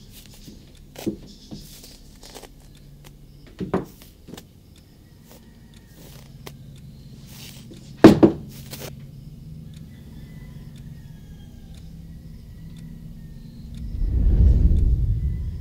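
Horror-film sound design: a low steady hum with a few sharp knocks, the loudest a double knock about eight seconds in, then a deep rumbling swell near the end.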